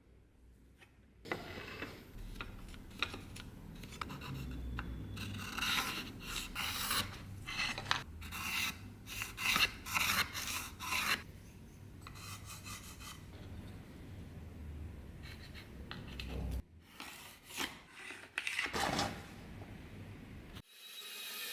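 Repeated hand rubbing strokes of a tool or abrasive against a workpiece, starting about a second in. They pause briefly near the end before a few last strokes.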